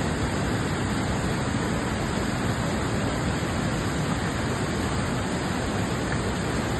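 Rushing river water making a steady, even rush with no breaks.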